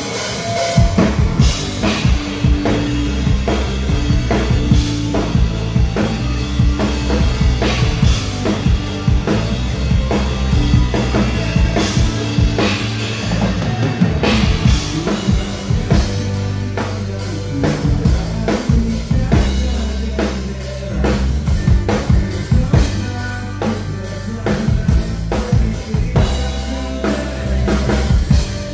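Live band music heard from beside the drum kit, the drums loudest: bass drum, snare and cymbals keeping a steady beat over sustained low bass notes.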